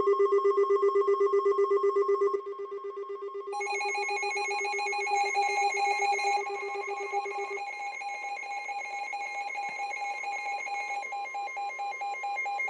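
Electronic weather-alert tones ringing ahead of a new severe thunderstorm warning: a rapidly pulsing low tone, joined about three and a half seconds in by a second, higher pulsing tone. The low tone drops out about halfway through, and the higher tones and a steady tone near 1 kHz keep sounding.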